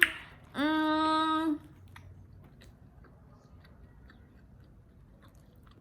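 A woman hums one long, steady "mmm" for about a second, then faint chewing with small clicks as she eats.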